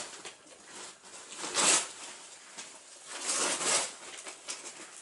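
Plastic and paper packaging rustling and crinkling in two longer bursts, as baby gifts are handled and unwrapped.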